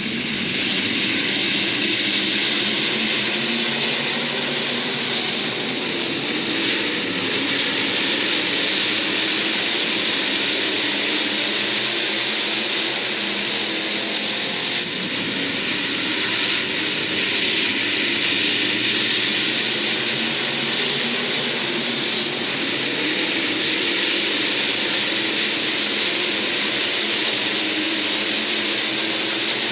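A field of IMCA SportMod dirt-track race cars running together, their V8 engines blending into one steady, unbroken engine sound.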